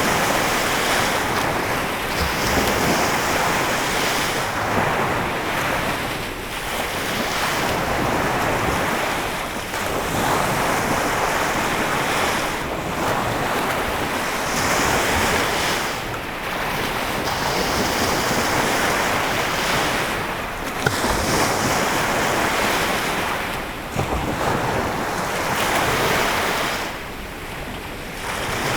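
Lake Michigan waves washing onto the shore: a steady rush that swells and briefly falls back every few seconds as each wave comes in.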